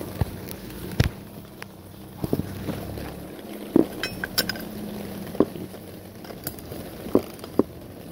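Scattered metal clinks and taps as a socket is handled and fitted onto a shock absorber mounting bolt on a minivan's rear suspension, about ten irregular knocks, a few with a short ring.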